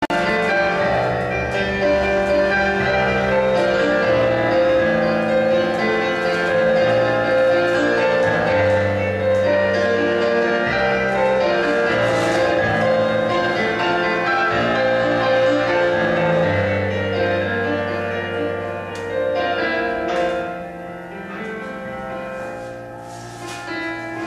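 Classical-style piano music, the accompaniment for a ballet barre exercise, with sustained chords over a slowly moving bass; it gets quieter in the last several seconds.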